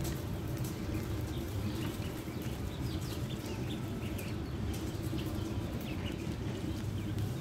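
A brooder full of ducklings peeping: many short, high peeps overlapping irregularly, over a steady low background hum.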